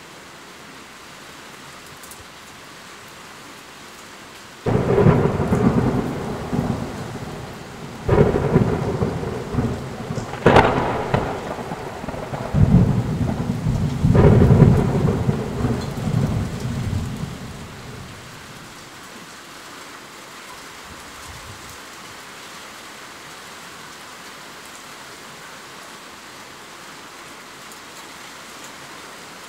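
Steady rain, broken about five seconds in by a sudden thunderclap, then several more sharp cracks and a low rolling rumble of thunder that dies away after about thirteen seconds, leaving the rain alone.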